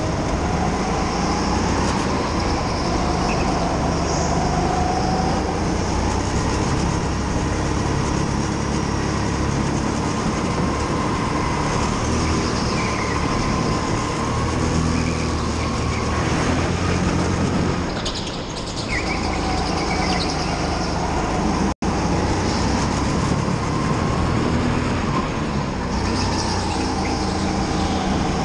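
Go-kart running flat out round an indoor track, heard from on board, its note rising and falling through the corners. It eases briefly about eighteen seconds in, and the audio drops out for an instant a few seconds later.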